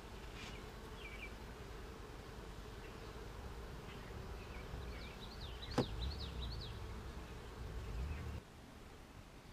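Honey bees buzzing in a steady hum around an opened hive as its frames are handled, with a single sharp click about six seconds in.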